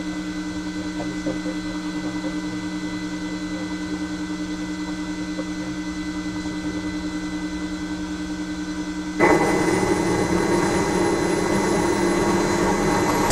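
Bell 429 helicopter's twin turboshaft engines during start-up, heard inside the cockpit: a steady whine made of several held tones. About nine seconds in it jumps suddenly to a much louder rushing run that builds slightly.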